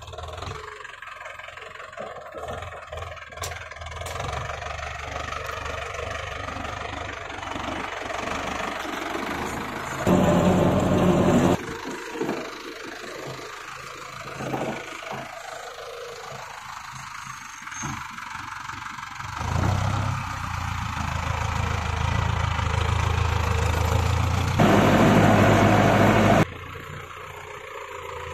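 Tractor's diesel engine running steadily while it works the field, with a deeper hum swelling in the second half. Two short stretches of much louder noise, a couple of seconds each, start and stop suddenly about ten seconds in and near the end.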